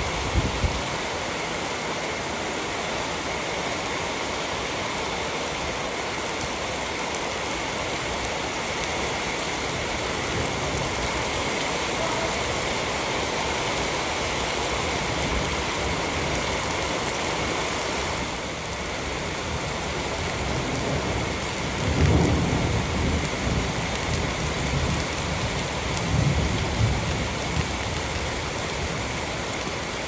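Steady rain falling on a flooded concrete slab, an even hiss of drops and splashes. Low rumbles of thunder come in about two-thirds of the way through and again near the end.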